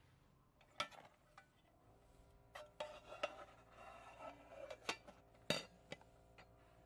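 Aluminium mess tin and its wire handle being handled by hand: a few light metallic clinks and rattles, clustered in the second half, with the loudest clink about five and a half seconds in.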